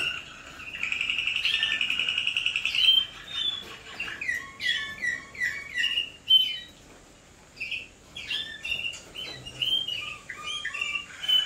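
Waterslager song canaries singing in their cages: a fast, even rolling trill near the start, then a run of short whistled notes that glide up and down, with a brief quieter lull a little past the middle.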